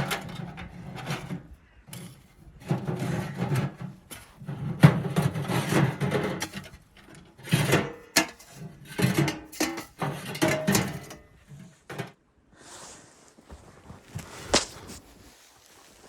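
Irregular wooden knocking, clattering and rubbing as things are handled, in bouts over the first twelve seconds, then quieter with a single sharp knock near the end.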